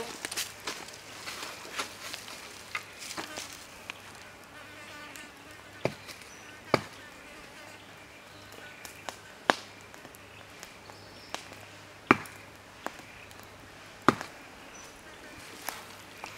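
Insects buzzing in the background, broken by sharp single clicks or snaps every second or two, the loudest about seven, nine and a half, twelve and fourteen seconds in.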